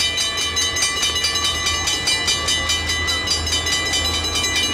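Railroad grade-crossing bell ringing in rapid, even strikes, about four or five a second, warning of an approaching train, over a low steady hum.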